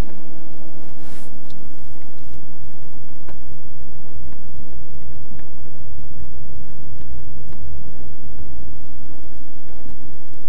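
Car driving, heard from inside the cabin: a steady low rumble of engine and road noise, with a few faint ticks.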